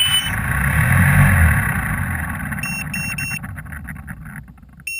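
Hexacopter's brushless motors and propellers whirring on the ground, starting abruptly, peaking about a second in, then fading as the props slow down. About halfway through come three quick electronic beeps, and three more at the very end.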